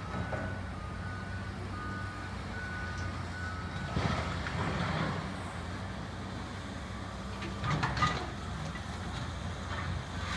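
Heavy construction machine's reversing alarm beeping, alternating between two pitches, for about the first four seconds, over the steady low hum of diesel engines. Louder noisy clatter comes around four seconds in and again near eight seconds.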